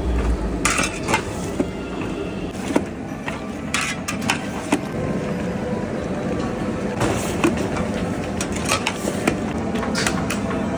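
Long steel ladle scraping and knocking against a large metal cooking pot as mutton and chillies are stirred, giving irregular clinks over a steady frying hiss.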